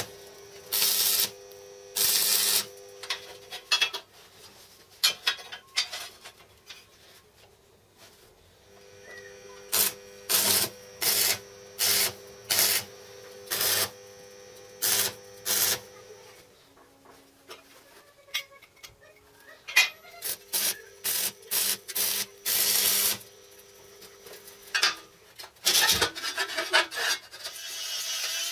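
Stick (arc) welder tack-welding steel: a string of short crackling, hissing arc bursts, each under a second, with a faint steady hum in between. Near the end an angle grinder starts cutting into the steel and runs on steadily.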